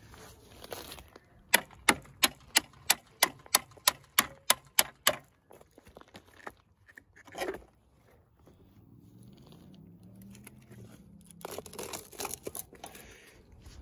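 A run of about a dozen sharp, evenly spaced clicks, about three a second, then a single knock, and near the end scraping and rustling as the compressed coil spring and its rubber dust boot are slid off the shock absorber rod of a Ford Focus MK2 front strut.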